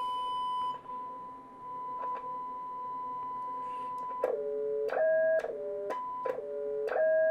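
A Cobra 200 GTL DX CB receiver's loudspeaker plays a steady whistle-like test tone from the injected signal, a sign the receiver is now receiving again. After about four seconds the tone breaks into different pitches that jump up and down with a click at each change, as a front-panel control is turned.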